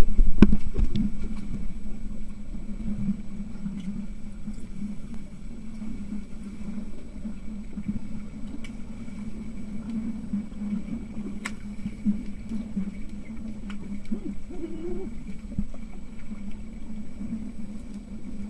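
Pool water and swimming players heard underwater: a muffled, fluctuating low churning with scattered sharp clicks and knocks, after a loud low rumble in the first second.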